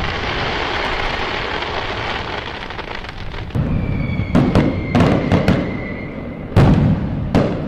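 Fireworks going off: a dense crackling for the first few seconds, then a quick run of bangs with a high whistle that glides slightly down, and two louder booms near the end.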